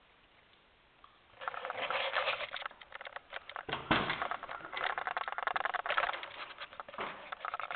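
Scratchy, crackling rustle of the recording phone being handled, with fingers or clothing rubbing over its microphone. It starts about a second and a half in and goes on in uneven spurts.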